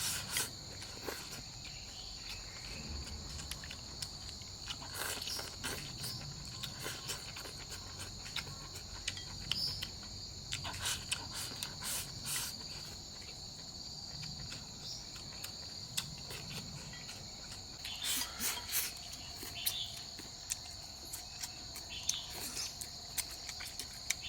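Steady high-pitched chirring of an insect chorus, with scattered short clicks and clinks of chopsticks on bowls while eating.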